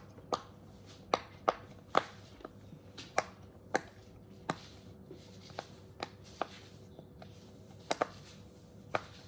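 Burger-shaped silicone pop-it fidget toy being popped: fingers press its bubbles through one after another, making a string of short sharp pops at an uneven pace, roughly two a second.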